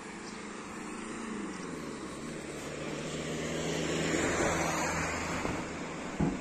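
A car driving past, its engine and tyre noise swelling and then easing off, the engine's pitch dropping as it goes by. A short thump near the end.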